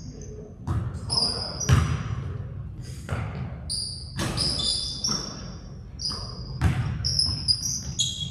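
Basketball game play on an indoor court: a ball bouncing at irregular intervals, every second or so, with short, high sneaker squeaks from players moving in between.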